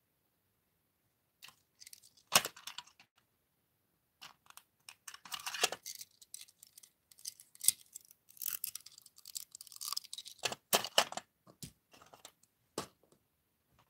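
Small plastic toy figures being handled: irregular clicks, taps and rustling as they are picked up and set down against each other and a hard plastic tray, starting about a second and a half in.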